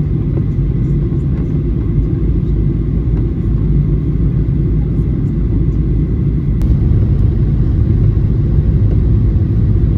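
Jet airliner cabin noise during the descent to landing: a steady low rumble of the engines and rushing air heard from inside the cabin, growing slightly louder toward the end.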